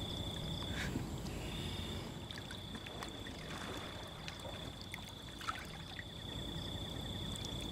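Soft water sloshing and trickling under a steady, high-pitched insect trill, with a few faint ticks.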